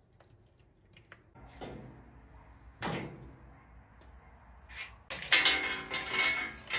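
Household knocks: a soft knock, then a louder thud like a door or cupboard closing about three seconds in. Near the end, loud music starts.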